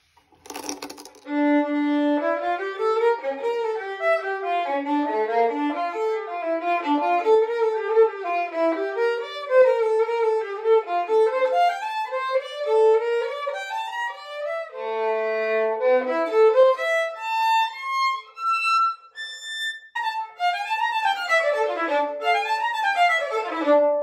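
Solo violin played with the bow: a continuous passage of many quick notes, a short break about two-thirds of the way through, then a few slower held notes climbing in pitch before quick runs resume. A brief click comes just before the playing starts.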